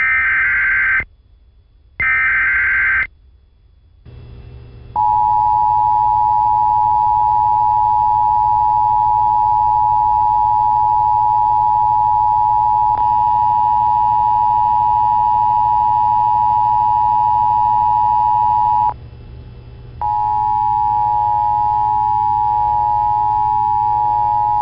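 Emergency Alert System broadcast: two short bursts of screeching digital SAME header data, then the steady two-tone EAS attention signal. The signal breaks off for about a second some nineteen seconds in and then resumes, over a low steady hum.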